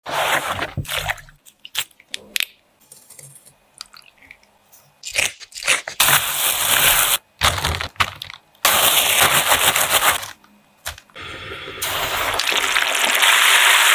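Crackling and clicking of handled packaging at first. Then come stretches of loud, even sizzling, the longest and loudest near the end: a battered prawn deep-frying in hot oil.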